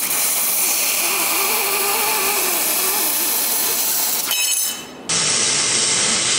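A handheld laser welder's cutting head, set to about 850 W, cutting 1.6 mm galvanized steel sheet with assist gas: a steady, loud hiss of gas and burning metal. It breaks off for under a second just after the four-second mark, then resumes.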